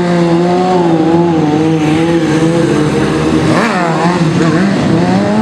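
Stunt motorcycle engine held at steady revs during a trick, with a quick rev up and back down about three and a half seconds in.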